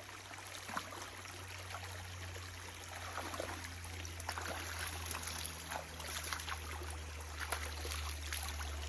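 Running stream water trickling and splashing in many small irregular ticks, over a steady low rumble.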